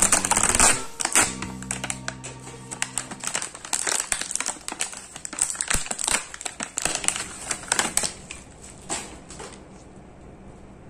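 Clear plastic toy packaging crinkling and rustling in dense quick clicks as it is torn open and handled, with background music in the first few seconds; the rustling stops near the end.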